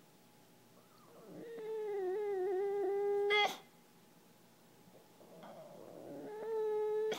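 English bulldog whining: two long, high whines with a slight waver, each swelling up out of a breathy sound. He is begging for someone to play frisbee with him.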